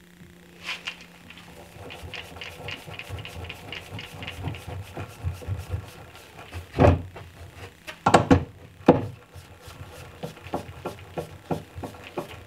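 Clicking and rattling of a wooden cabinet door's concealed hinges being fitted to the face frame, with three louder knocks about seven, eight and nine seconds in.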